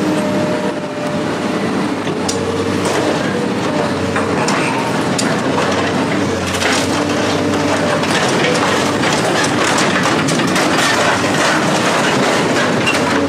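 An engine runs steadily while metal is crushed and broken up, with a dense stream of cracks, snaps and clatter.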